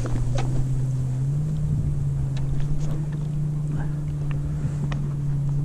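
A motor hums steadily, stepping up slightly in pitch about a second in, with a few light clicks over it.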